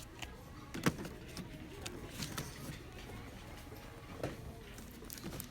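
Scattered light clicks and taps of cosmetic packaging being handled, with one sharper tap about a second in.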